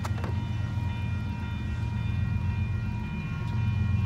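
Union Pacific ES44AC diesel-electric freight locomotive running with a steady low rumble, with faint steady high tones above it and a couple of sharp clicks at the very start.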